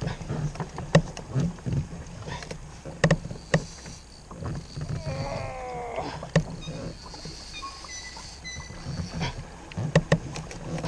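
Irregular knocks and clicks from a fishing kayak and its gear while a hooked fish is fought on rod and reel. A short falling pitched sound comes about five seconds in.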